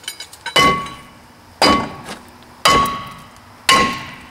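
Four blows of a splitting maul on a stuck front brake rotor, about a second apart, to knock it off the hub. Each blow is a metal clang that rings briefly.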